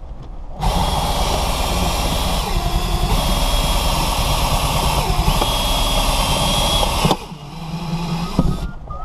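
Ryobi cordless drill running steadily to drive a windshield cut-out winder, pulling the cutting wire through the urethane. Its whine dips in pitch for a few seconds midway, and the drill stops abruptly about seven seconds in.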